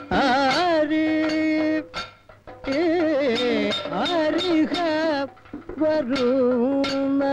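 Indian classical-style singing on the film soundtrack: a single voice with wavering, ornamented notes and long held notes, in phrases broken by short pauses about two seconds and five and a half seconds in.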